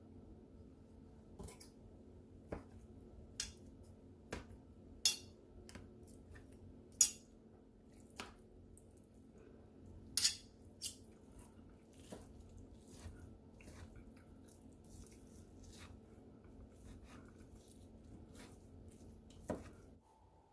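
Utensils clinking and tapping against dishes and a bowl in irregular sharp strikes, over a faint steady hum. The sound cuts off just before the end.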